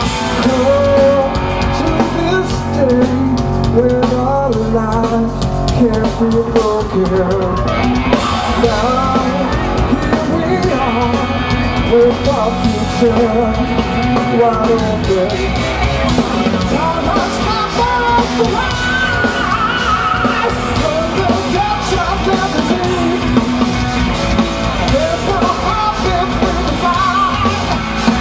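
Rock power trio of electric guitar, electric bass and drum kit playing live and loud through a stage PA, with a wavering lead melody bending in pitch over the band.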